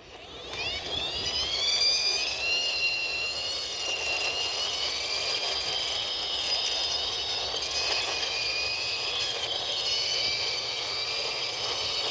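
Jet-like engine whine going with a toy 911 helicopter as it is driven along by hand. Several high tones rise in pitch over the first second or two, then hold and waver steadily.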